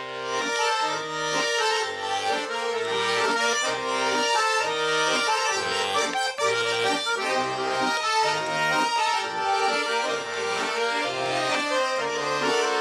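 Garmon (Russian button accordion) playing the instrumental introduction to a folk song: a melody in the right hand over a steady alternating bass-and-chord accompaniment of about two beats a second.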